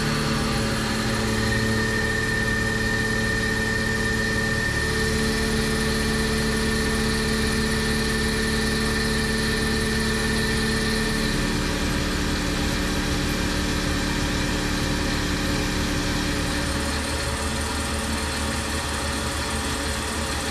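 Tormach CNC mill with its spindle in the low belt range, driving a 3/8-inch end mill through Hastelloy X under flood coolant. The cut runs steady and smooth, with no chatter: a mechanical drone and coolant hiss, with a high whine through the first half. The lower tones shift a few times as the toolpath moves.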